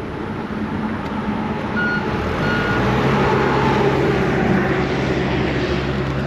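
Heavy diesel work vehicle running and getting louder, with a reversing alarm giving a couple of short beeps about two seconds in.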